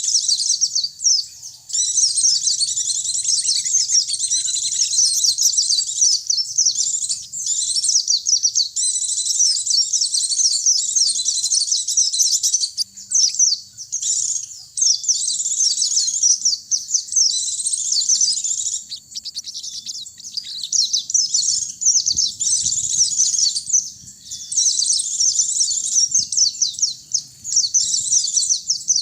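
Pleci (white-eye) and sogon birds singing: a fast, high twittering chatter in long phrases with brief pauses.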